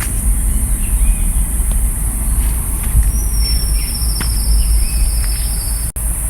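Outdoor ambience: scattered bird chirps and a high trill of about three seconds starting about three seconds in. Under them run a steady high insect-like hiss and a steady low rumble. The sound drops out for an instant near the end.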